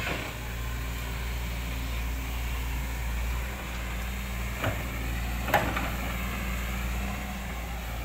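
Diesel engine of a SANY SY215C hydraulic excavator running steadily as it works its boom and bucket through wet mud, with two short knocks near the middle.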